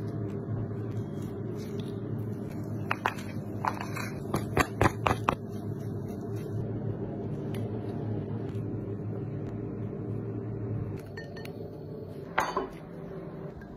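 Utensils clinking against a ceramic bowl: a quick run of sharp taps about three to five seconds in and one more near the end, over a steady low hum.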